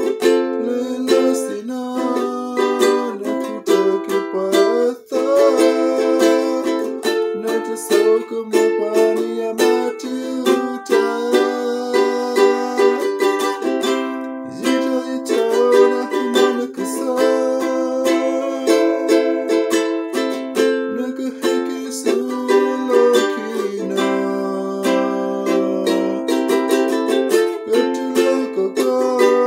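Ukulele strummed steadily by a beginner practising, chords ringing out, with a brief break about five seconds in.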